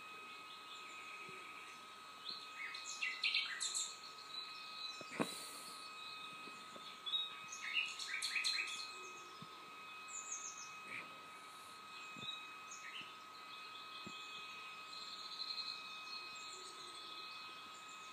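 Birdsong played from a television: several bursts of high chirping calls, over a faint steady high tone, with one sharp knock about five seconds in.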